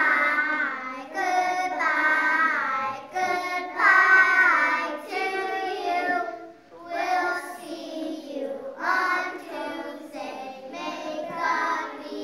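A group of preschool children singing a goodbye song together, in phrases that rise and fall.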